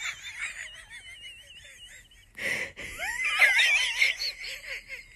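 A person laughing in high-pitched wheezes and gasps, with a wavering squeak, and a denser run of wheezy laughter about three seconds in.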